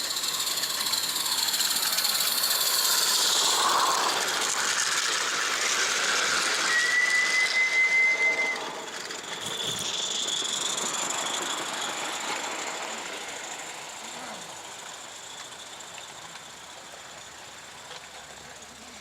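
A 16mm-scale live-steam model locomotive running with a steady hiss of steam, giving one whistle blast of nearly two seconds about halfway through; afterwards its sound slowly fades.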